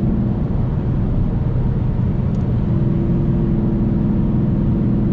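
Car cruising at highway speed, heard from inside the cabin: a steady engine drone under tyre and road noise. The engine note wavers briefly about a second in, then settles back to a steady hum.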